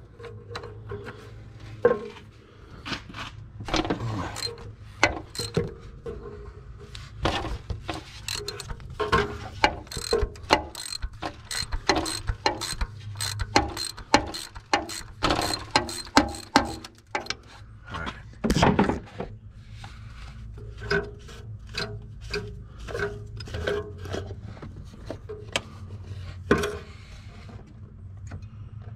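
Ratchet wrench clicking in quick, irregular runs while loosening the oil filter, over a steady low hum.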